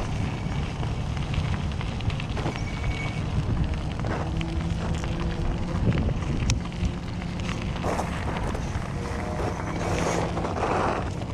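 Wind rushing over the microphone and tyres crackling over loose gravel as an e-bike rolls along a dirt road. A faint steady hum comes and goes.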